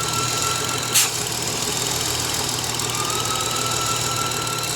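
BMW straight-six engine idling with a steady high-pitched whine over the engine hum, which the owner traces to a failed crankcase vent valve built into the valve cover; a short click sounds about a second in.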